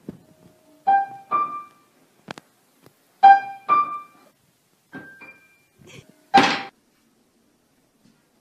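Piano keys pressed by a cat's paws as it walks on them: scattered single notes and pairs at uneven intervals, then a loud clash of several keys at once about six seconds in.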